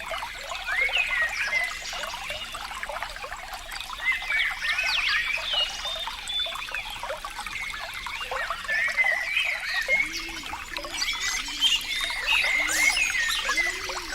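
Water trickling and gurgling, a steady stream of small splashes and bubbling plinks, with a run of deeper gurgles roughly once a second in the second half.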